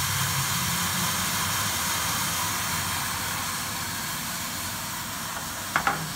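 Hot-melt powder shaking machine running: a steady mechanical hum with a hiss from its motor and fans, getting a little quieter toward the end. Two sharp clicks close together near the end.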